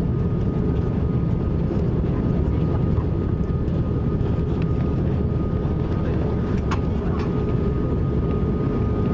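Airbus A330-300 jet engines, a steady low rumble with a faint thin high tone running above it.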